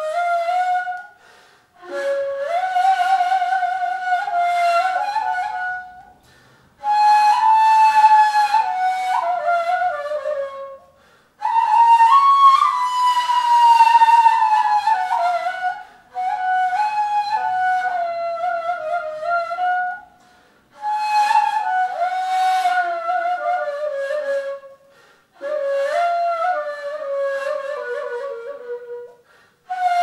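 Solo ney, the Turkish end-blown reed flute, playing a slow melody in makam hicaz. The breathy tone carries some vibrato, in phrases of a few seconds each, broken by short breath pauses about every four to five seconds.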